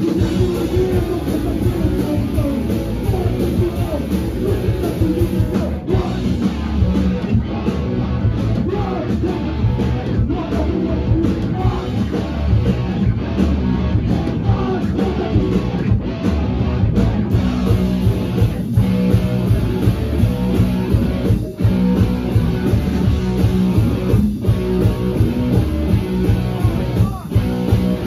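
A rock band playing live and loud in a small club: electric guitar, drum kit and a singer's vocals through the PA, continuous throughout.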